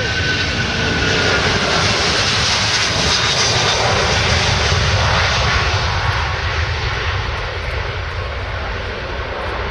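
Airbus A330-300 jet engines at takeoff thrust as the airliner rolls past, rotates and lifts off. A falling whine fades over the first couple of seconds. The engine noise is loudest in the middle and eases a little as the plane climbs away.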